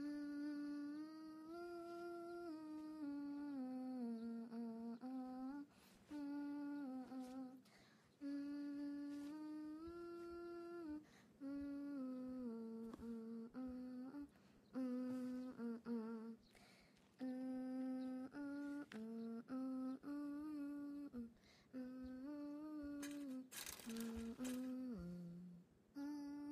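A young woman's voice humming a tune to herself, unaccompanied, in held notes with short breaks between phrases. A brief rustling noise comes a few seconds before the end.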